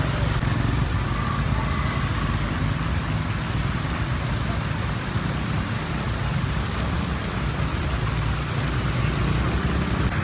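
Muddy floodwater running over rocks and flash-flood debris: a steady rushing noise with a low rumble underneath.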